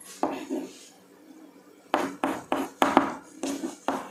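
Chalk tapping and scraping on a blackboard as characters are written. Two soft strokes come near the start, then a quick run of about eight sharp taps from about two seconds in.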